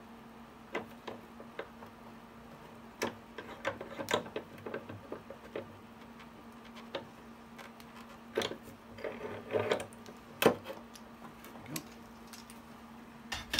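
Small metal bar clamps being loosened and lifted off a cello's rib: scattered clicks and knocks of the clamp parts, a short rattling scrape about nine seconds in, and a sharp knock at about ten and a half seconds.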